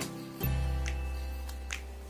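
Background instrumental music with sustained notes; a new deep bass note comes in about half a second in.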